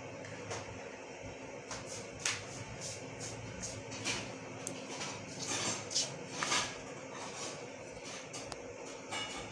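Steel spoon stirring dumplings in thick yogurt in a plastic bowl, giving irregular soft scrapes and clicks against the bowl, a few louder ones past the middle.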